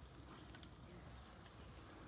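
Near silence: faint outdoor ambience, a low rumble with a few faint ticks.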